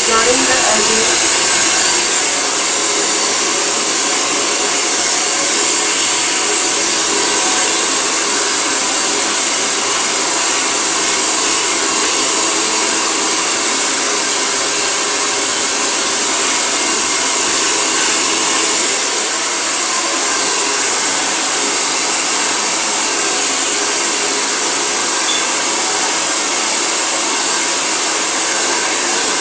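Handheld hair dryer blowing steadily at close range, drying wet hair, with a dip in loudness about 19 seconds in.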